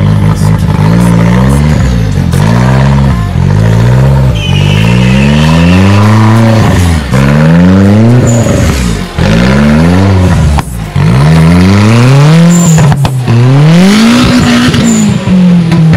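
Off-road 4x4 competition buggy's engine revved hard over and over, its pitch climbing and dropping about once a second and ending on a longer climb, as its mud tyres spin and fling mud.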